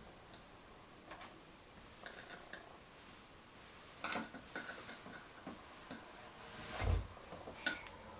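Small metallic clicks and clinks of steel pins being handled and fitted by hand into a Spank Spoon aluminium flat pedal, in scattered little clusters, with one duller thump about seven seconds in.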